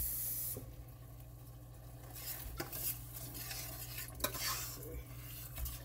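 Curry gravy sizzling in a stainless steel sauté pan while it is stirred with a metal slotted spatula, with scraping and a few sharp clinks of metal on metal. The sizzle is loudest at the start and drops off after about half a second. Near the end, water is poured in from a small saucepan to thin the gravy.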